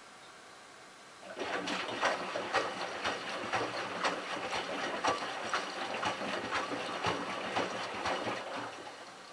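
Miele Touchtronic W3033 front-loading washer turning its drum on a delicate wash: the motor hums and the wet load and water slosh, with regular ticks about twice a second. It starts about a second in and stops near the end, as the delicate cycle's short drum turns do.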